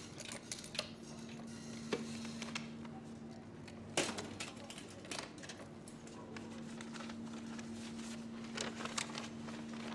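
Keys jingling and clicking in the lock of a metal post-office box, with a sharp metallic click about four seconds in as the little door opens. Near the end, paper envelopes are handled, with a few light clicks and rustles. A steady low hum runs underneath.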